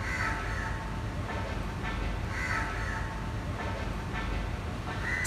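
Crows cawing several times, a second or two apart, over a steady low rumble of city background noise.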